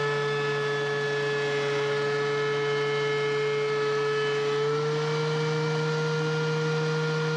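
DeWALT DW735X benchtop thickness planer running on its low feed speed, its motor whining steadily while it takes a 1/16-inch pass off a board. About four and a half seconds in, the pitch rises slightly as the board clears the cutterhead and the planer runs unloaded.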